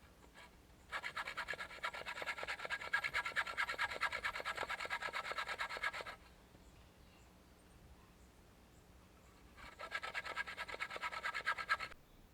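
A hand tool rasping on wood in two bouts, one of about five seconds and a shorter one of about two seconds, each a fast, even run of scraping strokes.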